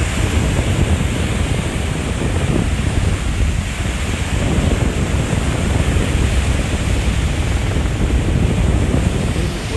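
Lake Michigan waves breaking and washing up onto a sandy beach, under a steady low rumble of wind on the microphone.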